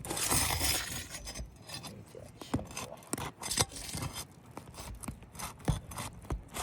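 Flat bar scraping and prying under roof shingles, breaking their seal so they lift. There is a long rasping scrape in the first second, then a run of short scrapes and sharp clicks.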